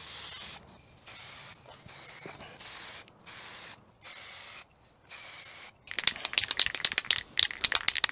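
Aerosol spray can of Motip engine paint hissing in about six short bursts, each under a second, as paint is sprayed on. In the last two seconds, rapid irregular clicking and rattling takes over.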